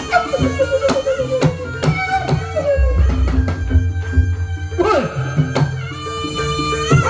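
Traditional Javanese barongan music: a shrill, wavering reed-pipe melody over rapid hand-drum strokes and a steady held tone, with a deep low sound swelling about three seconds in.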